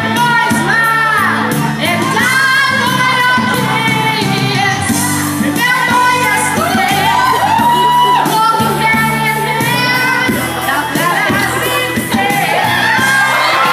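A man singing live into a handheld microphone over a pop backing track with a steady beat, amplified through a PA in a large hall. The voice glides and bends through long sung phrases.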